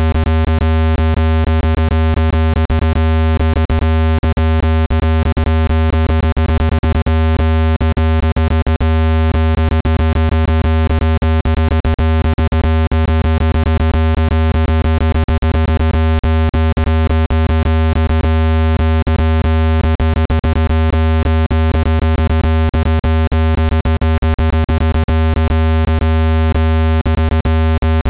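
Synthesized low-pitched speaker-cleaning tone, meant to vibrate dust out of a phone speaker grille: a loud, steady low buzz with a stack of overtones, broken by rapid, irregular flutters and dropouts.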